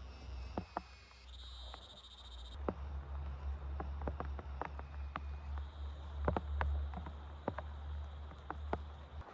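Scattered drops tapping sharply on a tent or tarp, a few a second, over a steady low rumble. A brief high chirring is heard for about a second near the start.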